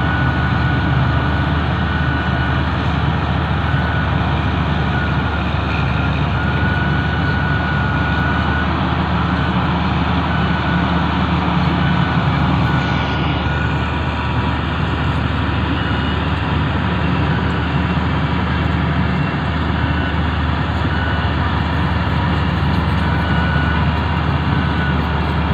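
Sumitomo SH350 hydraulic excavator's diesel engine running steadily, with a faint high whine that comes and goes.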